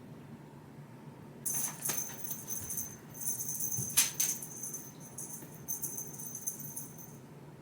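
Light metallic jingling in several short bursts with pauses between them, starting about a second and a half in.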